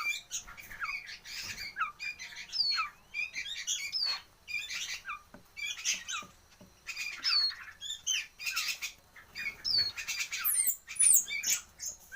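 Nightjar chick calling over and over: harsh squawks mixed with short downward-sliding chirps, in clusters roughly once a second.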